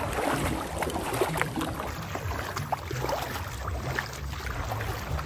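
Wind buffeting the phone's microphone in gusts, over small waves lapping in shallow water.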